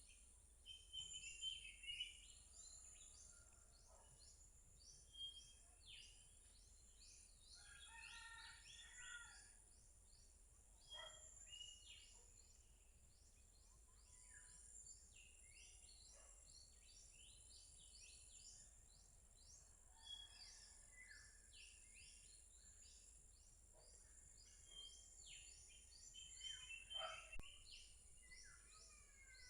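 Faint birdsong: several birds chirping and calling, with quick high chirps throughout and louder bursts of calls about a second in, around eight seconds, and again near the end. A steady high-pitched hiss runs underneath.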